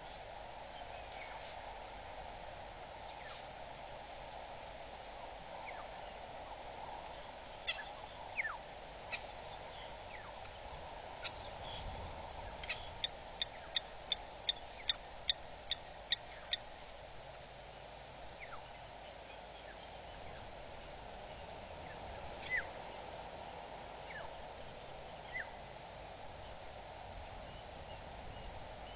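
Wild birds calling: scattered short chirps and, about halfway through, a run of about a dozen evenly spaced call notes over some four seconds, over a steady background hiss.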